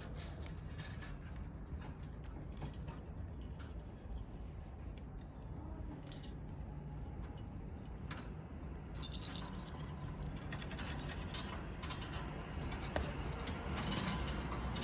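Scattered small clicks and clinks over a steady low hum, getting busier about halfway through.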